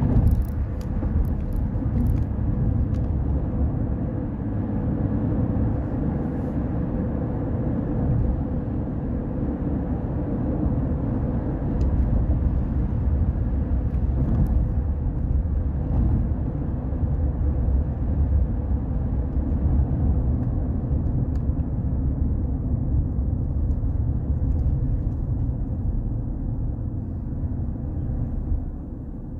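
Steady low rumble of a car's engine and tyres heard from inside the cabin while driving, with a few light clicks in the first few seconds.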